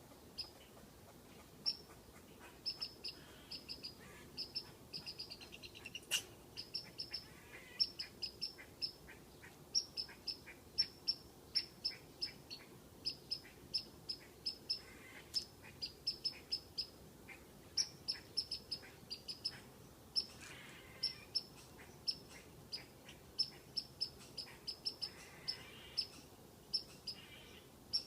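Squirrel's alarm call aimed at a cat: long runs of short, high, whistle-like chirps, several a second, broken by brief pauses.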